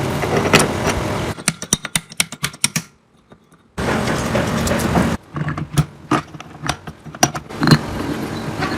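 Metal tools and engine parts clinking and knocking, in a series of sharp taps over a steady mechanical hum, with a brief silent gap and abrupt jumps in level that suggest edited cuts.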